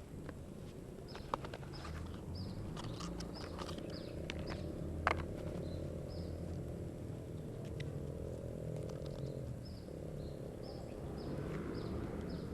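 Short, high falling chirps from a small animal, repeating about twice a second over a low steady hum, with scattered sharp clicks and one louder click about five seconds in.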